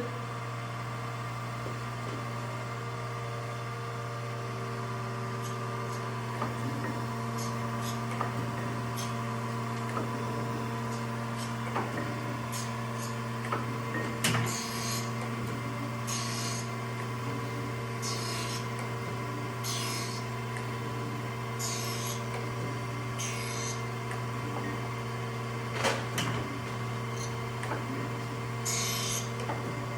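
Acer AGS-1224AHD surface grinder running with its spindle started: a steady hum with several fixed tones. From about halfway, short hissing bursts come every one to two seconds as the wheel grinds the part, with a few sharp clicks.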